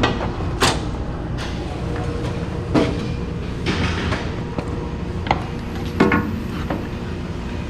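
A steady machine drone with irregular knocks and clatters, about six of them, scattered through it.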